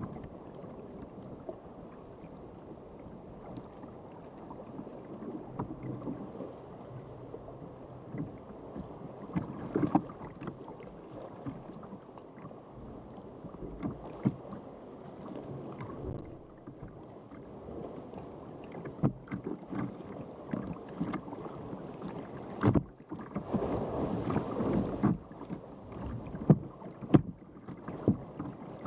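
Water lapping and slapping against a sea kayak's hull under way, with frequent short, sharp splashes. About three-quarters of the way through, a louder rush of churning water lasts a couple of seconds.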